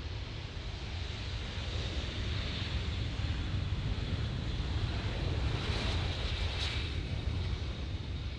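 Airbus A320 jet engines and airframe noise as the airliner rolls out on the runway after landing: a steady jet roar with a deep rumble, swelling slightly through the middle.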